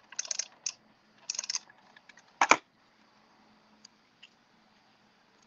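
Hands handling paper card stock: a few quick crinkly rustles and clicks in the first second and a half, then one sharp click about two and a half seconds in, as a small paper die-cut is handled and set onto a card.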